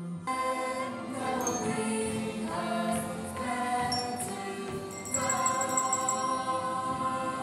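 Music with a choir singing: voices on held chords over an accompaniment, the notes changing every half second or so and swelling louder about five seconds in.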